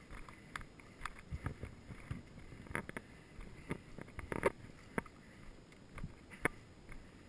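Footsteps on dry grass and dirt with gear rustling, from a person walking: irregular soft thuds and clicks about once a second.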